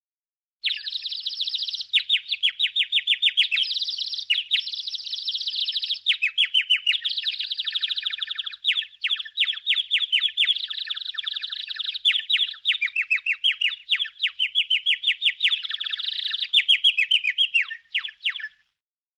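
Cartoon 'dizzy' tweeting-birds sound effect: a fast, unbroken run of high bird chirps and twitters, many per second. It starts under a second in and stops shortly before the end.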